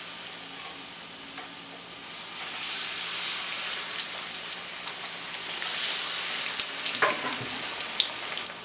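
Batter-coated sesame breadsticks deep frying in hot oil in a kadhai: a steady bubbling sizzle that swells twice, with a few sharp clicks near the end.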